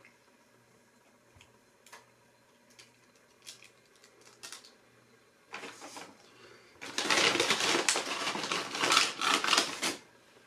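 Paper fast-food packaging crinkling and rustling as it is handled. A few soft clicks come first, then a loud stretch of dense crackling lasting about three seconds near the end.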